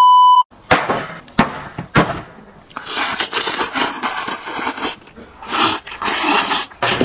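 A steady high test-card beep that cuts off after about half a second, then close-up eating sounds: sharp bites and noisy bursts of chewing and slurping.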